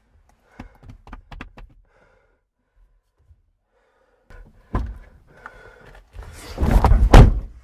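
A quick run of light knocks, then a single sharp thump, then a loud rough crashing noise lasting about a second near the end.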